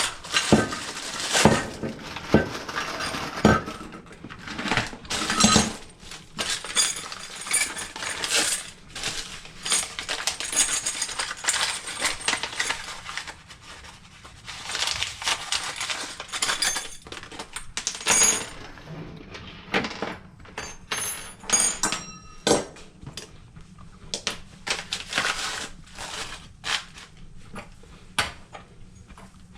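Metal parts and tools of a clothes dryer being handled under repair: irregular clinks, clatter and knocks.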